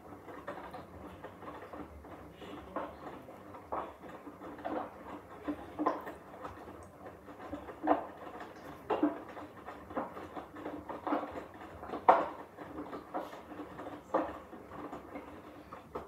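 Hoover H-Wash 300 Plus front-loading washing machine drum tumbling a wet, sudsy load, with water sloshing and clothes flopping over about once a second. The tumbling stops abruptly near the end.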